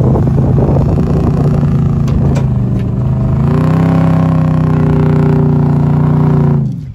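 A 4WD's engine working hard as it tows a boat trailer up soft beach sand. The revs climb about three seconds in, hold high and steady, then drop away suddenly near the end.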